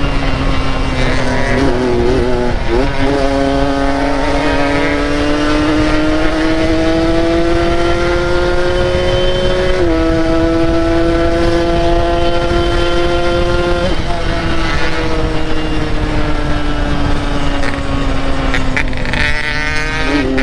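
Yamaha RX-King two-stroke single-cylinder motorcycle engine running while riding. Its pitch rises slowly through the first half, jumps twice, then sinks slowly near the end.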